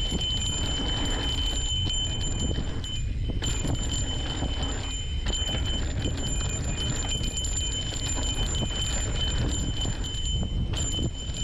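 Mountain bike rolling fast down a dirt singletrack: wind buffeting the camera microphone and tyre rumble over the rough ground, with a steady high-pitched whine throughout.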